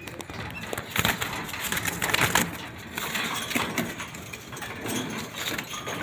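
Caged pet parrots making short, harsh calls amid scattered knocks and rattles.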